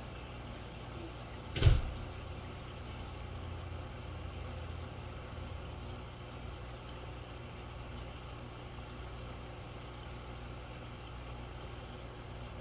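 Steady low background hum, with one sharp knock about a second and a half in.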